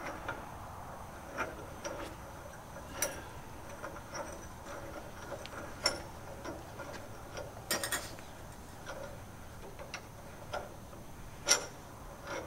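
Sparse sharp metal clicks and clinks, a few seconds apart, as hardware is worked by hand at the nose of the radial engine.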